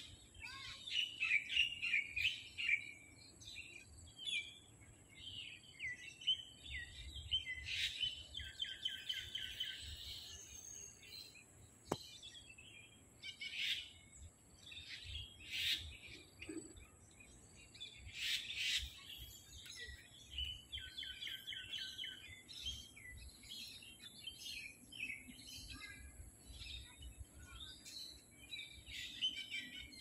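Several small birds chirping and singing, many short calls and trills overlapping throughout, with a faint steady high-pitched tone behind them.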